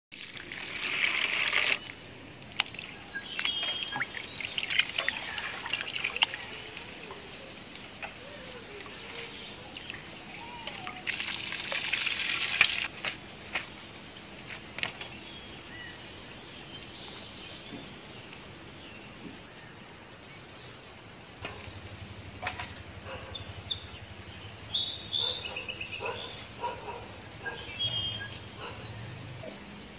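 Water poured from a plastic jug over a basin of small raw shrimp, splashing at the start, with further bursts of splashing and handling of the wet shrimp. Birds chirp in the later seconds.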